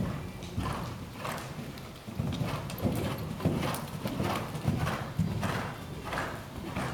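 Hoofbeats of a grey Holsteiner gelding cantering on the sand footing of a riding arena: a steady rhythm of dull thuds, about two to three a second.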